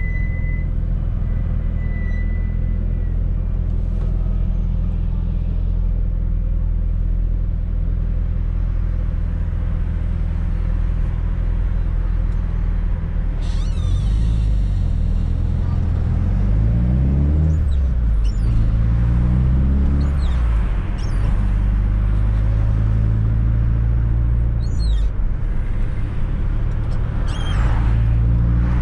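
1995 Fiat Coupe 2.0 16V Turbo's four-cylinder turbo engine running at a steady cruise, then, about halfway through, revving up with the pitch rising, falling at a gear change and rising again. Short hissing sounds come between the revs and again near the end.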